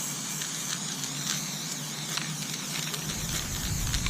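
Aerosol spray-paint can hissing steadily as paint is sprayed onto lug nuts. A low rumble comes in about three seconds in.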